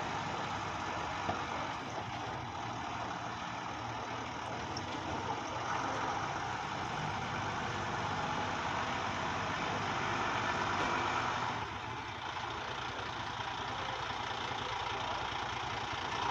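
Renault Midliner fire engine's diesel engine running as the truck pulls away and drives slowly, growing a little louder partway through and then dropping off abruptly about two-thirds of the way in.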